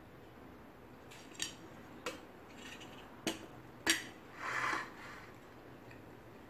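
Four sharp clinks of a metal spoon against a metal serving dish, the loudest near the fourth second, followed by a short scrape as food is scooped from the dish.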